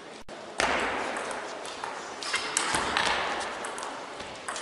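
Table tennis rally: the celluloid ball clicking sharply off the bats and the table again and again, starting about half a second in, over a steady noisy background from the hall.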